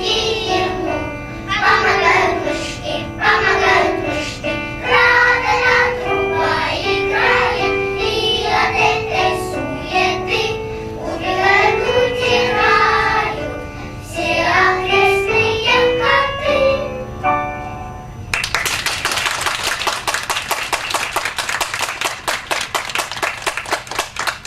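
Children's choir singing to the end of a song, with the accompaniment sustaining the final chord. Then, about three-quarters of the way in, the audience breaks into applause that lasts to the end.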